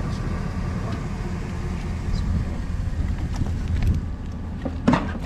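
Steady low rumble of an idling vehicle engine, with small clicks and a sharp knock about five seconds in as things inside a metal trunk are handled.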